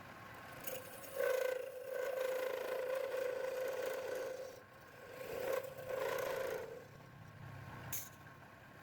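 Wood lathe spinning a workpiece while a turning tool cuts it, giving a steady pitched hum that swells each time the tool bites, about a second in and again near six seconds.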